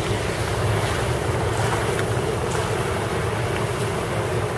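Steady rushing of a creek in flood after heavy rainfall, with wind noise on the microphone.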